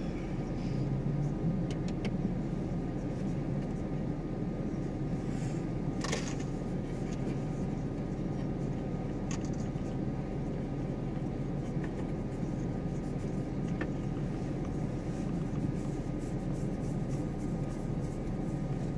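Steady low rumble of a car idling, heard from inside its cabin, with a brief click about six seconds in.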